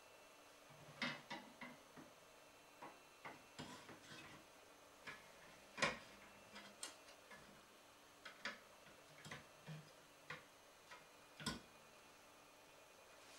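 Irregular small clicks and knocks of a 3.5-inch hard drive and a metal drive cage being handled and fitted together, about twenty taps in all. The loudest knock comes about six seconds in, with another strong one near the end.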